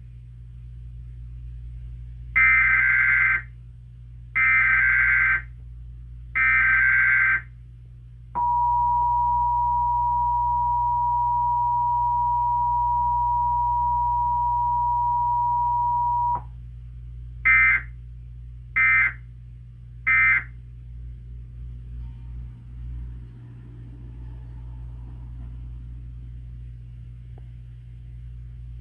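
Emergency Alert System national test signal from a TV. Three data bursts of about a second each (the SAME header) come first, then the steady two-tone attention signal for about eight seconds. It stops with no spoken warning message and is followed by three short end-of-message bursts about a second apart.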